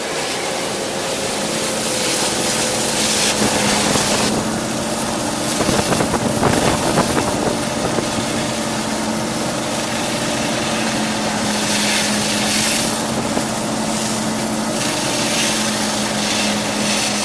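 Panther Model H1 high-pressure hydro excavation unit working: a steady engine-and-pump hum under the loud hiss of a high-pressure water jet washing out soil. The hiss swells and eases several times.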